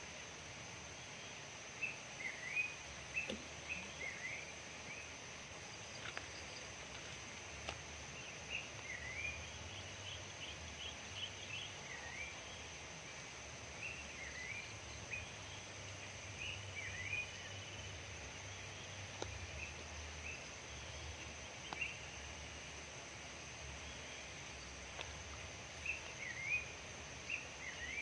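Birds chirping: short chirps that dip and rise in pitch, repeated every second or so, over a steady outdoor hiss with a constant high thin tone.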